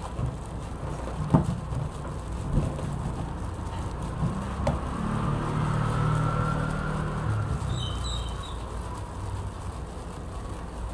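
Plastic-gloved hands squeezing and pressing rice into a ball over a stainless steel bowl: crinkling glove plastic and soft squishing, with a few sharp knocks against the bowl, the loudest about a second in. About halfway through, a low rumble swells and fades over a few seconds.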